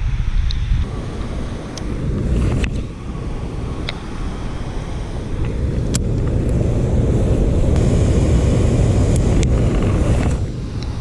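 Floodwater rushing through the open floodgates of a dam: a steady, low, rumbling rush, with a few sharp ticks on top.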